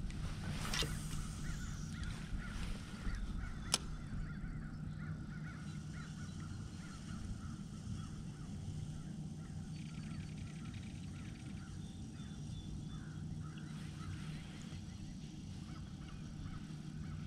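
Birds calling over and over, with one sharp click about four seconds in.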